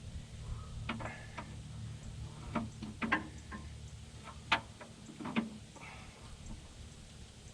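Scattered sharp metallic clicks and knocks, about seven at irregular intervals, of a wrench and socket being fitted and worked on an extremely tight bolt, over a faint low hum.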